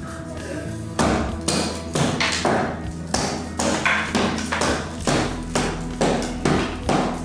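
Claw hammer striking the wooden plank formwork box at the top of a column, a dozen or so sharp blows at about two a second, starting about a second in.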